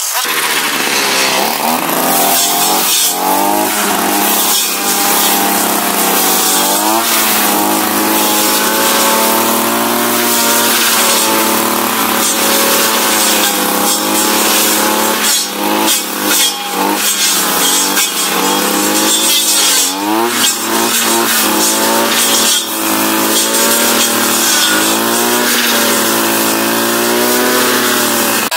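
Dolmar MS 3202 brushcutter engine running at high revs, its pitch repeatedly dipping and rising as the cutting head bites into dense dry grass and weeds.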